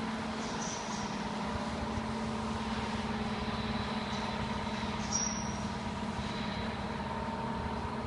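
Steady hum of workshop machinery, with constant tones over a noisy background and one brief high squeak about five seconds in.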